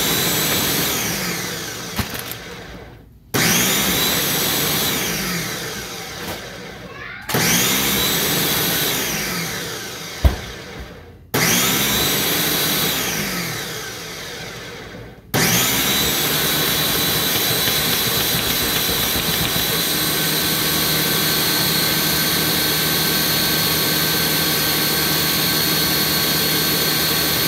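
Countertop blender motor blending a thick green smoothie with frozen fruit. It runs in short stretches of about four seconds with brief stops, its pitch rising at each restart and sagging under the load through each run. From about halfway through it runs steadily. A single sharp knock comes about ten seconds in.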